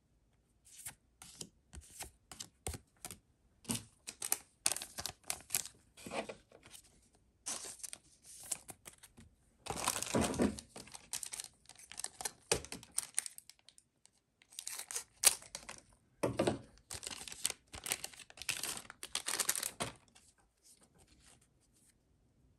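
Crinkling and tearing of a foil trading-card booster pack wrapper, together with cards being handled, in irregular rustly bursts with a short lull partway through. It dies down near the end.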